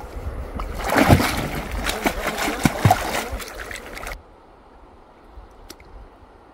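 Water splashing and sloshing as a person works by hand in a shallow pond under a brush pile, feeling for fish, with a few plops. The splashing cuts off suddenly about four seconds in, leaving a faint hiss.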